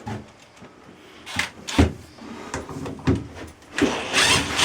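Knocks and clatter of tools and hardware being handled, with a sharp knock a little under two seconds in and about a second of scraping, rustling noise near the end.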